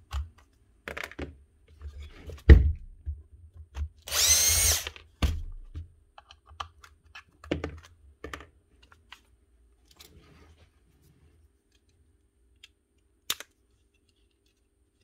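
Screwdriver and plastic housing parts of a Bosch 7-115 angle grinder clicking and knocking as it is taken apart to get at its carbon brushes, with one loud whine lasting about a second, about four seconds in.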